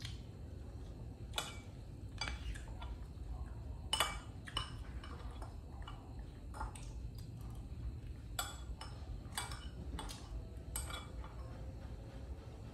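Irregular light clinks and taps of a spoon against a bowl during feeding with rice and egg, over a steady low hum.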